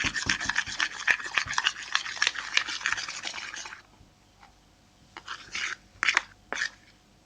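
Spoon stirring a glue-and-dish-soap slime in a container: rapid scraping and clicking that stops about four seconds in, followed by a few short scrapes.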